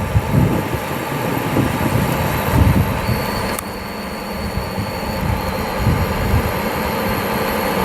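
A steady mechanical hum and rush, like a running fan, with an uneven low rumble underneath. A faint high steady tone comes in about three seconds in and lasts about two seconds.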